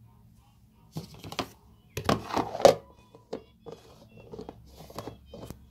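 A plastic tub's snap-on lid being pressed down and clicked shut: a string of plastic clicks and knocks, loudest about two seconds in, with lighter ticks after.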